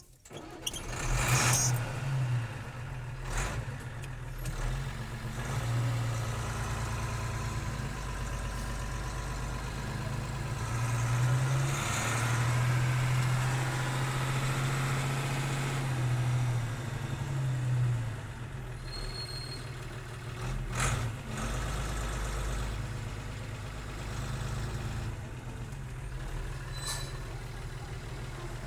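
1984 Bedford diesel truck engine heard from inside the cab, starting up in the first couple of seconds and then running steadily. The engine speed rises for several seconds around the middle and drops back, and a few short sharp sounds cut in over the running engine.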